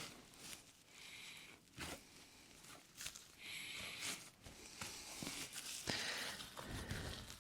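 Irregular handling noises, with rustles, scrapes and light knocks, and a few short hissy bursts of about a second each. No motor or mill is running.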